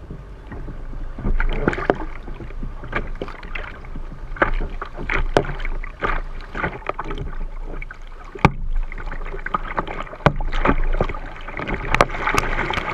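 Choppy sea slapping and splashing against a sit-on-top kayak's hull as it is paddled, with the paddle blades dipping in. The slaps come sharp and irregular and grow busier near the end.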